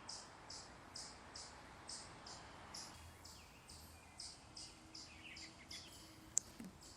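High, buzzy chirps repeated evenly about twice a second in the yard, with a few fainter lower notes. A single sharp click near the end.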